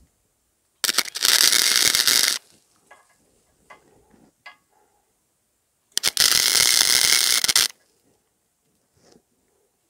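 Wire-feed (MIG) welder crackling as it lays two short welds on a cracked steel exhaust pipe, each about a second and a half long and about four seconds apart. The welder is set low so as not to blow through the pipe.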